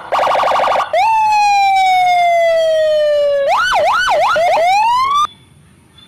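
Police car's electronic siren cycling through its tones: a fast pulsing warble, then a long tone that jumps up and slowly falls, then a few quick up-and-down wails and a rising sweep. It cuts off suddenly about five seconds in.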